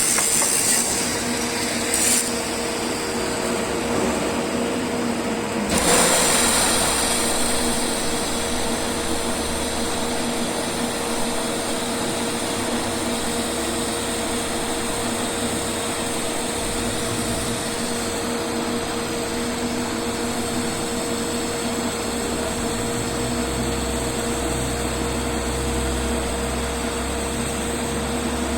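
TIG welding arc at about 120 amps hissing and humming steadily, with two short sharp crackles about two and six seconds in.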